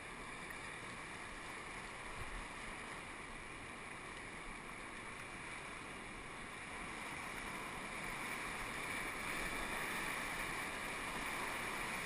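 River rapids rushing, a steady whitewater hiss heard from a paddle raft, growing louder in the second half as the raft nears the rapid.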